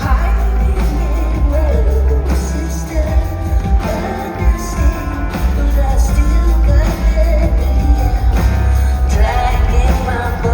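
Live performance of a rock song: a woman singing over a band, with a loud, heavy bass line and a steady beat.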